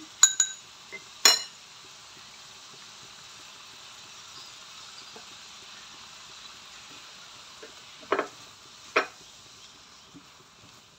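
Small squid frying in a pan with freshly added seasoning, a steady sizzle. A few sharp metal clinks in the first second and a half, and two knocks near the end.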